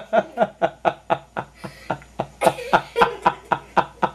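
A person laughing in a long run of quick, breathy snickers, about five a second, with a short break about halfway through.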